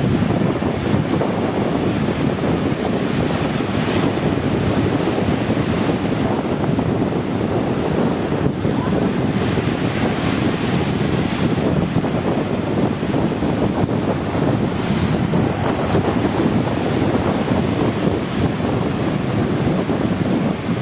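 Sea waves washing with wind, and wind rumbling on the microphone: a steady, loud rush with a few brighter swells of hiss now and then.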